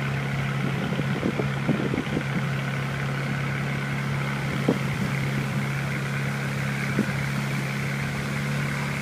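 Boat engine running with a steady low drone, with a few short knocks about a second or two in and twice more later.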